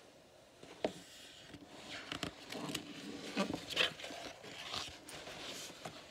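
Pages of a picture book being turned by hand: paper rustling and scraping in a run of short strokes, with a light tick about a second in.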